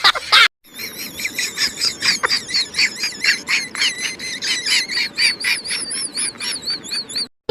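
High-pitched warbling chirps, repeated rapidly at a few pulses a second with a wavering pitch, starting and stopping abruptly at edit cuts.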